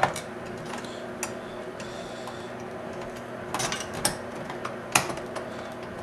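Small metal clicks and clatters of a screwdriver and screws against a computer's sheet-metal chassis and hard-drive caddy: a few sharp ticks scattered through, over a faint steady hum.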